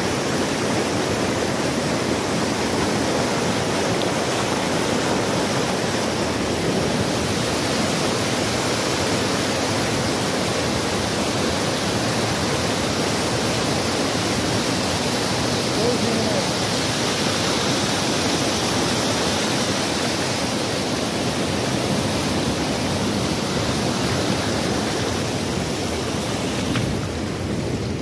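Rushing water of shallow river rapids tumbling over rocks and a small cascade: a steady, even rush.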